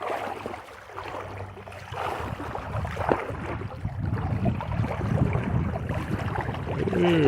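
Irregular sloshing and scraping of digging in shallow river water, with sand and gravel shifting and a few short strokes.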